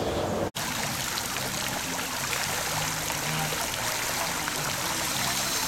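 Swimming-pool water running and trickling steadily, with a brief dropout about half a second in.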